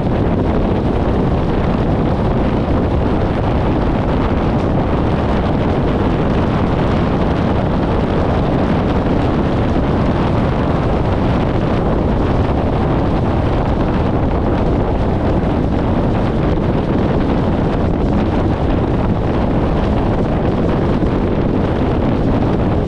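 Steady wind rush buffeting an externally mounted camera's microphone, mixed with road noise from a 1994 VW Gol travelling at highway speed.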